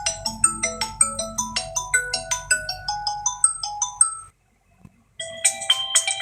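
Phone ringtone in a marimba-like sound: a quick run of short mallet notes that stops about four seconds in. After about a second of silence, a different, brighter chiming ringtone starts.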